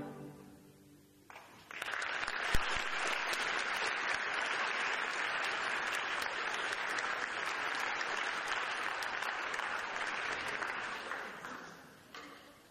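Concert audience applauding as an orchestral string chord dies away. The applause starts about a second and a half in, holds steady, and fades out near the end. There is one sharp knock about two and a half seconds in.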